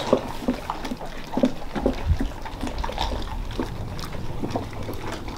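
Dogs chewing and crunching frozen raw chicken and mackerel from their bowls: a run of irregular crunches and clicks, with a low rumble about two to three and a half seconds in.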